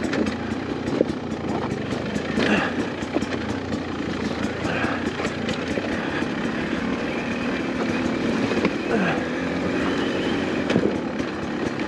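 Beta 250 RR two-stroke dirt bike engine running on a trail ride, its pitch rising and falling with the throttle. Many short clicks and knocks sound over it.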